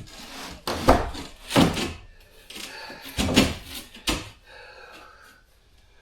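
Heavy wooden knocks and thuds, about five, as a large floor panel is worked and knocked down into place over the attic floor joists.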